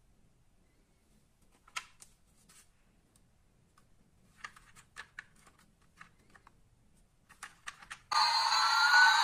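Light plastic clicks and taps as a toy jet plane is handled and turned over, then about eight seconds in a loud electronic toy sound effect starts suddenly: a steady hiss with whistling tones that sweep up and down across each other.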